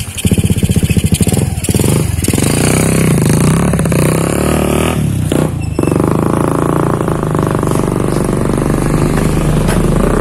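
A small engine running, with a fast, even putter for the first second or so that settles into a steady drone, dipping briefly about five seconds in.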